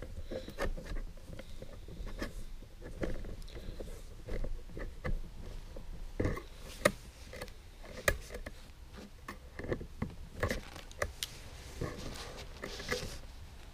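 Pliers working fine wire around a metal umbrella rib: irregular clicks and short scrapes of metal on metal, with rustling of the umbrella's canopy fabric. Two sharp clicks about seven and eight seconds in are the loudest.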